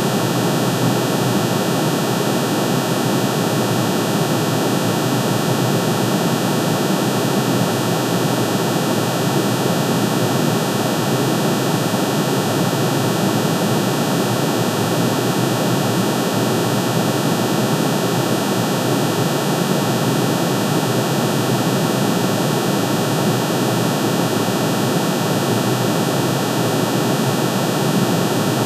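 Synthesised drone of aluminium's atomic spectrum: many sine tones, one for each spectral line, pitch-shifted into hearing range and sounded together. The result is a steady, unchanging dense hum and hiss.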